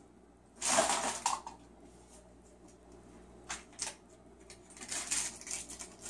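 Cockatoo rummaging in a basket of wooden and plastic toys and pulling at a foam floor mat, the pieces clattering and knocking together: one louder rattle about a second in, then scattered lighter knocks.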